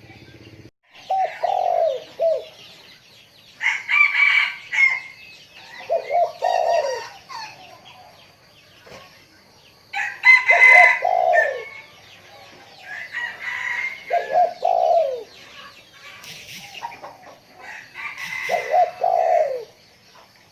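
Spotted dove cooing, a short phrase of several low notes repeated about five times, with chicken calls between the phrases.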